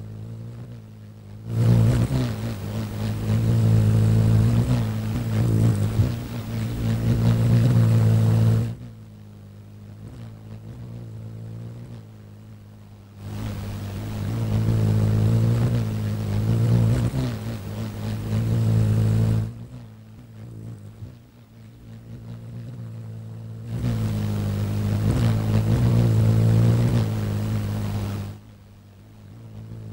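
Hummingbird wing hum: a low buzzing drone that swells loudly three times for several seconds each, over a steady low hum that never stops.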